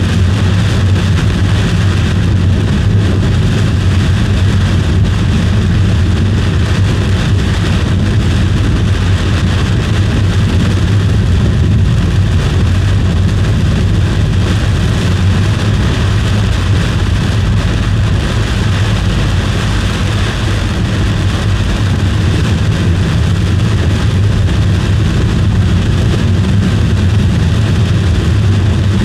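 Steady road and engine noise inside a moving car, a constant low rumble.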